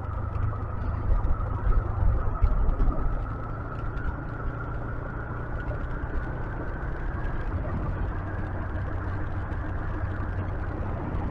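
125cc motorcycle engine running steadily in fifth gear while riding, its note climbing slightly over the first several seconds.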